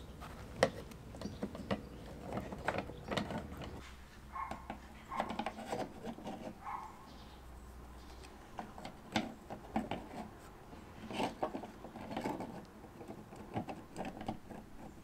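Model doors being pushed and snapped into a model goods shed's doorways by hand: irregular small clicks, knocks and scraping.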